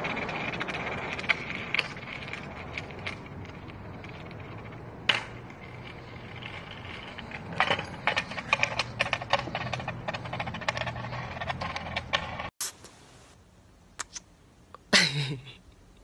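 Skateboard wheels rolling over a concrete lot, a steady rumbling rush with many small clicks and cracks from grit and joints. It stops abruptly at a cut; after that it is much quieter, with a few clicks and a brief sound dropping in pitch near the end.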